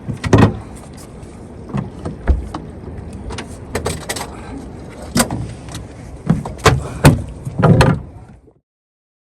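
Irregular knocks and thumps on a fishing boat, about ten of them, over a steady background of boat noise; the sound cuts off suddenly near the end.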